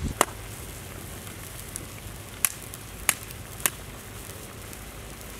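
Wood fire crackling under a clay pot of simmering chicken curry: a few sharp, separate pops over a steady low hiss.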